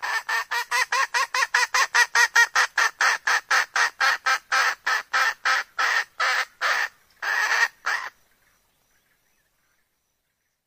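Junglefowl hen calling: a long run of short, harsh clucking notes, about five a second at first and slowing to a few a second before stopping about eight seconds in.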